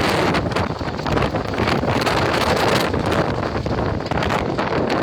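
Strong gusting wind buffeting the microphone: a loud, rough rush of wind that swells and dips unevenly.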